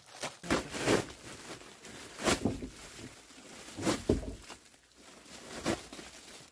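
Plastic mailer wrapping with a foil bubble liner being torn open and rustled, in about four loud rough bursts, with a dull low thump about four seconds in.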